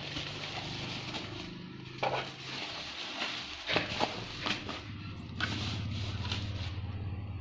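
Hands handling boxed computer parts and their accessories: a few light knocks and clicks over a low steady hum.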